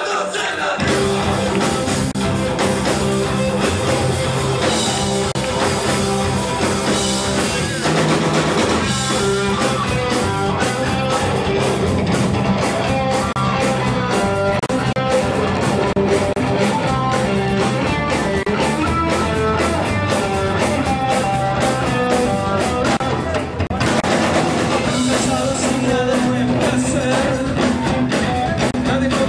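A live rock trio playing a song with electric guitar and drums while a voice sings, the band kicking in about a second in.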